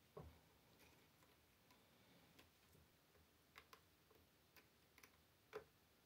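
Faint, scattered small clicks and ticks of a flat ribbon cable being worked into its connector on an all-in-one PC's motherboard, the clearest click about half a second before the end.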